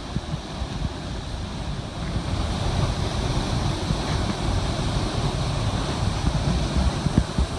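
Steady rushing roar of a waterfall and the stream at its foot, with wind buffeting the microphone in low gusts. The roar grows louder about two seconds in.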